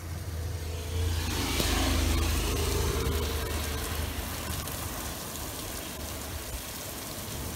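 Thunder rumbling overhead, swelling about a second in and fading slowly over several seconds, with rain hissing on a roof window.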